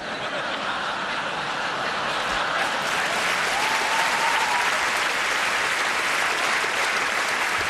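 Large theatre audience applauding, dense steady clapping that builds slightly after it begins. A brief high tone rises faintly above the clapping about four seconds in.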